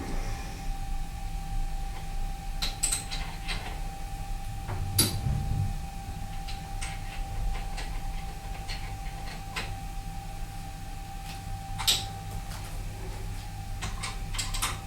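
Metal lathe running under a turning cut on 16 mm bar stock, a steady motor hum with a constant whine. Scattered light metallic clinks and ticks sound over it, the sharpest about five seconds in and again near twelve seconds.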